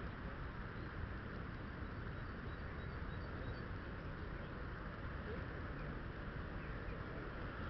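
Wind buffeting the microphone as a steady, gusty rumble, with a few faint high bird chirps about two to three seconds in.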